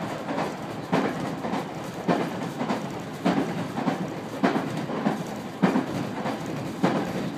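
Wheels of a JR 213-series electric train clacking over rail joints over a steady running rumble, heard from inside the car. The clacks come about once a second and space out slightly as the train slows into a station.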